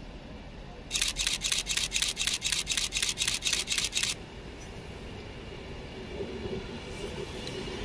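A fast, even run of about fourteen sharp clicks, some four a second, lasting about three seconds. Then the rising sound of an Avanti West Coast Class 390 Pendolino electric train drawing in.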